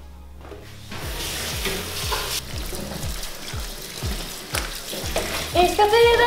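Tap water running into a stainless steel sink while wet clothes are rinsed by hand, under background music with a steady beat of about two thuds a second. A melody joins the music near the end.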